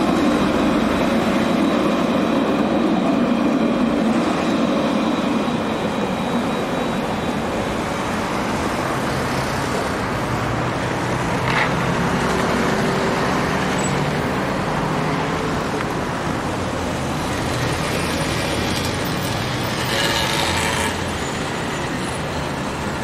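Steady city road traffic: cars and other motor vehicles running along a boulevard, louder for the first few seconds. A motor scooter passes close by near the end.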